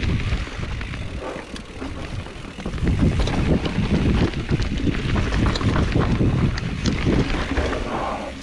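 Wind buffeting the microphone and mountain bike tyres rumbling over a dirt trail during a fast descent, with scattered small clicks and rattles from the bike. It gets louder about three seconds in.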